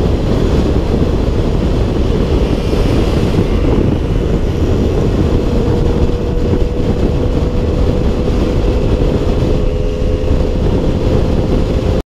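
Motor scooter riding at road speed, its engine running under a heavy rumble of wind buffeting the microphone. A steady engine note comes up about halfway through and climbs slightly in pitch.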